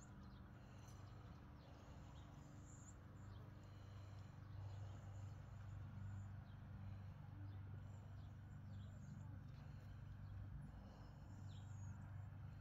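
Near silence: faint outdoor ambience with a low steady rumble and scattered faint bird chirps.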